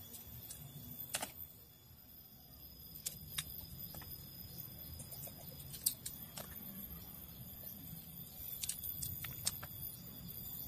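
Small knife splitting jengkol (dogfruit) beans by hand: irregular sharp clicks and cracks, roughly one every second or two, as the blade breaks through the tough skins, over a low steady background rumble.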